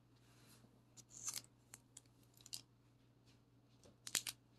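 Foil Pokémon booster pack handled in the hands: faint crinkles and light clicks, with a few sharper crackles about four seconds in.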